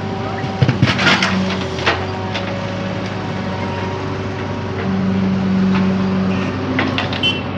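JCB machine's diesel engine running steadily, its note swelling briefly about five seconds in, with a few knocks and clanks about a second in and again near the end.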